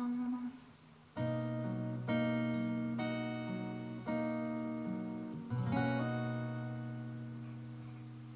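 Acoustic guitar playing the closing chords of a song: about five slow strummed chords, each left to ring, the last one fading out. At the very start a sung note is still held for about half a second.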